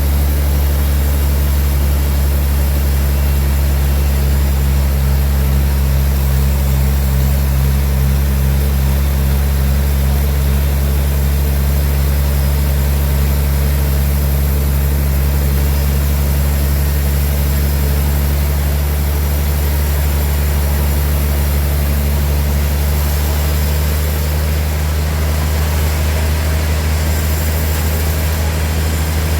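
Heavy engine of a sawmill running steadily with a low, even hum that does not change in pitch or loudness.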